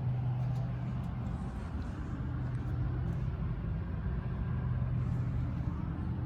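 Chevrolet Z71 truck's engine idling steadily, a low even hum with some rumble.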